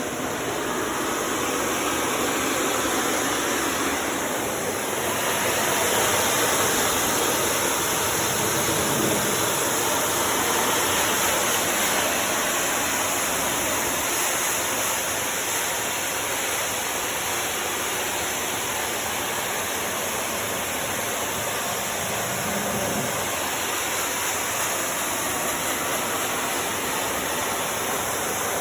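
Steady hiss of a pressure washer's high-pressure water spray blasting a dirty coil clean, with a constant rushing sound.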